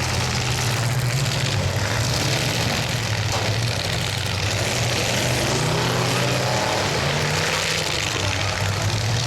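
Demolition derby truck engines running loud and steady: a low engine drone with a rough noise over it.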